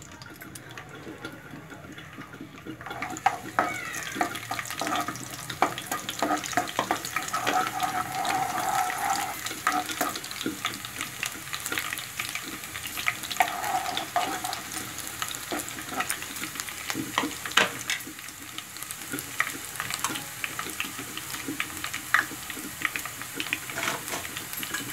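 Chopped garlic sizzling in hot desi ghee in a kadhai, building up about three seconds in, while a steel ladle stirs it with frequent clicks and scrapes against the pan.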